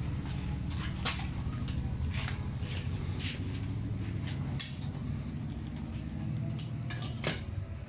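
Light clicks and knocks from handling a suction-cup windshield installation rig as it is adjusted on the glass, over a steady low hum.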